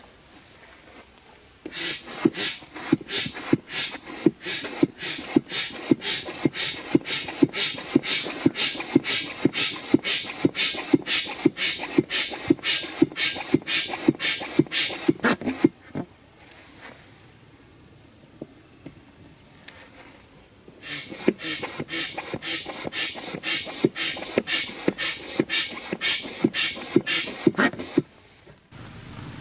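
Foot pump inflating an inflatable rowing boat: a quick, even rhythm of puffing air strokes in two long runs, with a pause of a few seconds in the middle.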